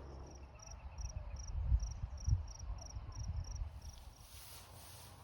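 A cricket chirping in an even rhythm, about three chirps a second, stopping about four seconds in. Irregular low thumps and rumble sit underneath.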